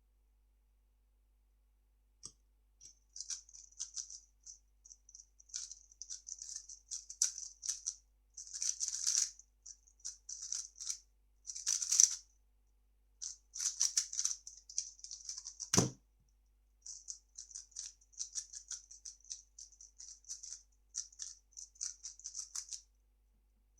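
A 3x3 speedcube being turned fast: rapid, crisp plastic clicking of the layers in two long runs, with a break of about a second half way. About two-thirds of the way through, a single sharp thump stands out as the loudest sound.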